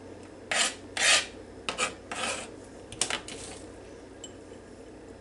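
Kitchen knife scraping minced onion off into a small glass bowl: a run of about six short scrapes over the first three seconds.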